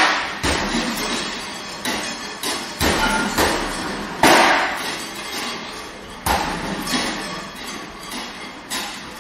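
Solo percussion: a string of irregularly spaced struck hits, each ringing on and dying away. The loudest strike comes about four seconds in.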